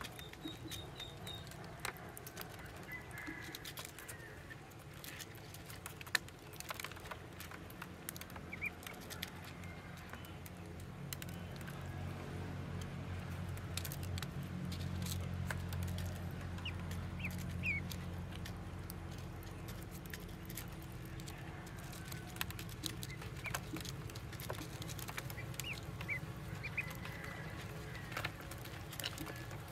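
Ducklings pecking at feed in a plastic dish: many sharp clicks of bills against the dish and feed, with short high peeps here and there. A low hum swells in the middle and then eases off.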